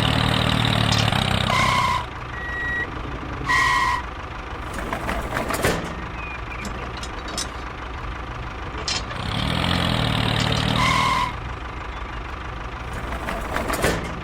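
Tractor engine running, loudest in two spells near the start and about two-thirds through. Short two-note electronic beeps sound three times, and there are scattered clicks and knocks in the quieter stretch between.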